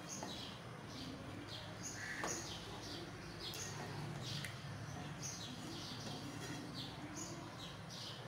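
Birds chirping over and over: short, high, falling chirps about two a second, over a low steady hum.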